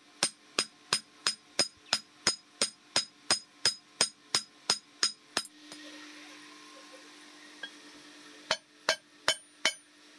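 Hand hammer striking steel on an anvil in a steady rhythm, about three ringing blows a second, stopping a little past halfway. A steady rushing hiss of the coal forge fire follows. Near the end come four more hammer blows on red-hot steel on the anvil.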